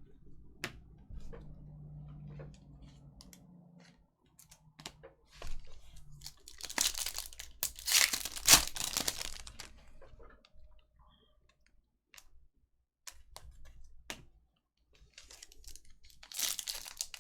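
Foil trading-card pack wrappers being torn open and crinkled, in two bouts, with scattered light clicks of cards being handled between them.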